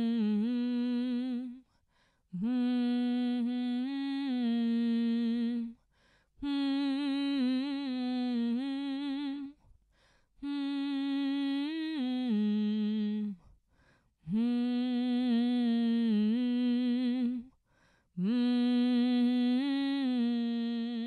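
A solo voice humming a slow, wordless tune in long held phrases of about three seconds each, with short breath pauses between them.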